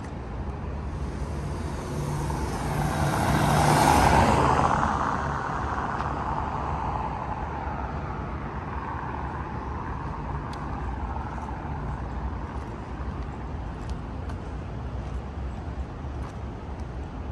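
A road vehicle drives past close by. Its tyre and engine noise builds to its loudest about four seconds in, then fades away over a steady low traffic hum.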